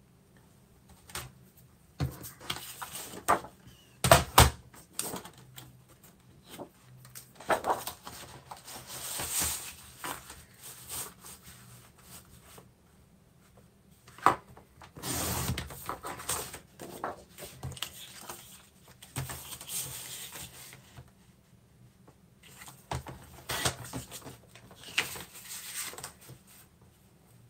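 Patterned paper being handled and cut on a paper trimmer: the sheet slides and rustles as it is positioned, the trimmer's blade is drawn along in scraping strokes, and the sheet and trimmer are set down with sharp knocks, the loudest about four seconds in.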